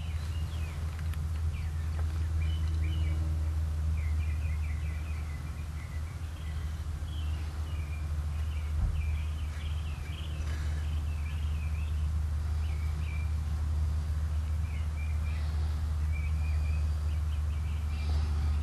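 Small birds chirping repeatedly in short calls over a steady low hum, with one brief knock about halfway through.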